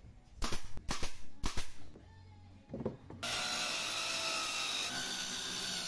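Pneumatic nail gun firing several separate shots into a wooden frame. From about three seconds in, a corded jigsaw runs steadily, cutting a sheet of board.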